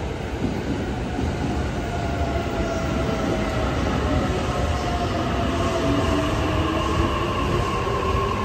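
Electric commuter train pulling into the platform and slowing: a steady rumble of wheels on rail, with several whining tones that slowly slide in pitch as it brakes.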